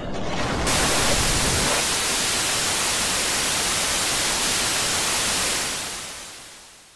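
TV static hiss, an even white-noise rush that cuts in sharply just over half a second in, holds steady, then fades out over the last second and a half. A low rumble underneath dies away within the first two seconds.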